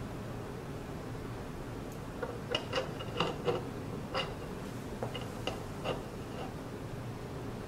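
A run of small metallic clicks and taps, about a dozen over four seconds starting about two seconds in, as the collimator lens in its ring mount is set onto its post holder on an optical rail and adjusted. A steady low hum runs underneath.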